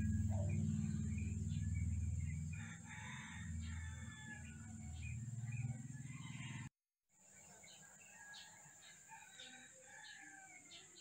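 Faint early-morning ambience: a rooster crowing and small birds chirping over a low steady hum. The hum stops abruptly about seven seconds in, leaving only the fainter bird chirps.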